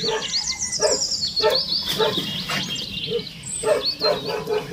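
A dog barking in short, repeated barks, with high, quick chirping calls over them.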